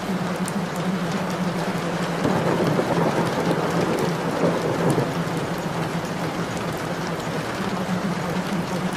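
Recorded rain falling steadily over a steady low hum, swelling louder for a few seconds about two seconds in.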